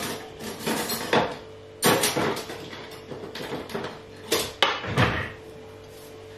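Kitchen utensils clinking and knocking as metal cutlery is picked up and handled, with several separate clatters over the first five seconds and a faint steady hum underneath.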